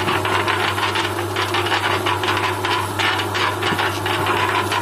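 Electric concrete mixer running: its motor gives a steady hum under a constant rattle from the belt drive and turning drum. The slipped drive belt has just been refitted and re-tensioned, and the mixer is running normally.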